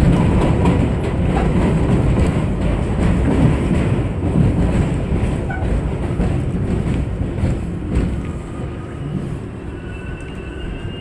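New York City subway train running on an elevated line and slowing into a station. A dense rumble and wheel clatter eases off steadily, and faint high whines appear near the end as it comes to a stop.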